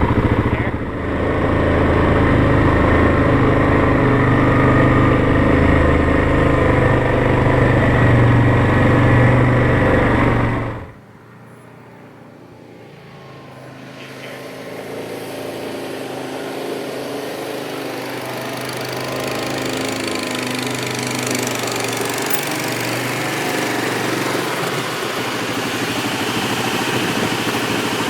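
ATV engine running steadily while riding on a trail. About ten seconds in the loud engine sound drops off suddenly, and a quieter engine sound then builds slowly.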